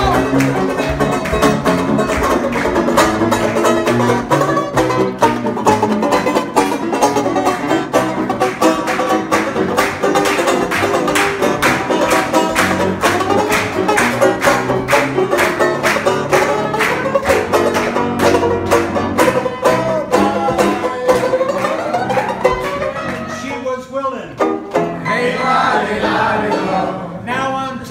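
Banjo strumming fast and upright piano playing an up-tempo tune together. The piano is an old upright with a few dead keys. The playing thins out about three-quarters of the way through.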